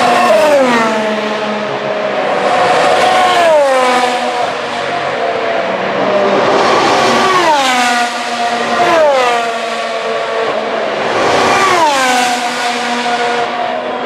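2017 Formula 1 cars' turbocharged V6 hybrid engines passing one after another at speed, about five pass-bys. Each engine note drops sharply in pitch as the car goes by, with the next car's note already rising in behind it.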